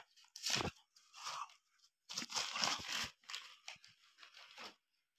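Newspaper wrapping crinkling and tearing as it is pulled off an object by hand, in a string of short, uneven rustles.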